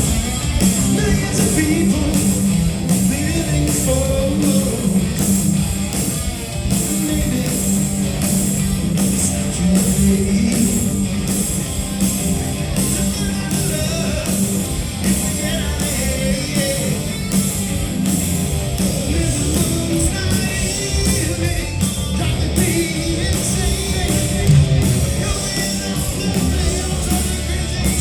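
A rock band playing live, loud, with electric guitars over a steady drumbeat.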